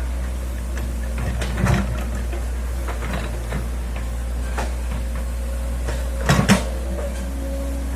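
Hitachi excavator running with a steady low engine drone, with a clunk a little under two seconds in and a louder double clunk near the end.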